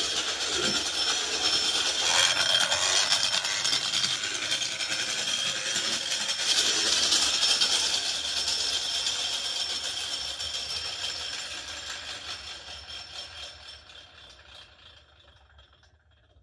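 Large machined flywheel toy car's metal gear train and flywheel whirring with a rattle as it is revved by hand, loudest twice, then running down and fading away over several seconds as the car rolls off. The builder takes the gear rattle for a poor gear choice or gears not meshed at the right depth.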